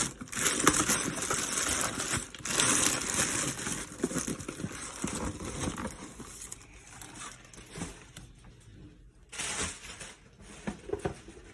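Crinkling and rustling of shoe packaging being opened and handled by hand, with small clicks and scrapes; busiest in the first few seconds, going almost quiet for a moment late on before the rustling resumes.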